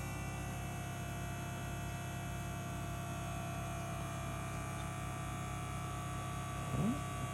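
Battery-powered Zacro automatic electric ball pump running steadily with an even hum, inflating a deflated soccer ball.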